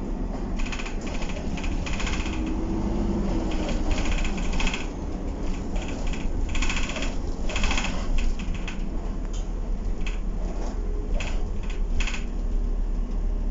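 Inside an Optare Solo single-deck bus on the move: steady low engine and road rumble, with repeated bursts of rapid rattling from loose panels and fittings. About two to three seconds in, the engine note briefly rises and falls.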